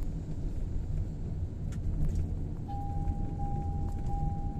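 Toyota Innova Hycross lane departure alert sounding over steady cabin road rumble: a little over halfway through, a high steady beep starts, repeating in long pulses with tiny gaps, warning that the car is drifting out of its lane.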